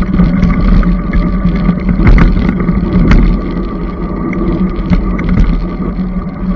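Electric bike riding along a paved road: a steady motor hum over heavy low rumble from wind on the microphone and tyres on the road, with scattered clicks and rattles.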